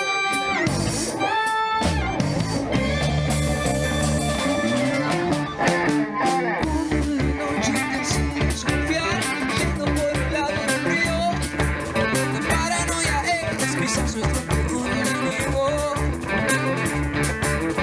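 A rock band playing an instrumental candombe-rock piece on electric guitars, bass, drums and keyboard. Held guitar and keyboard notes open it, and a steady driving beat takes over about six and a half seconds in.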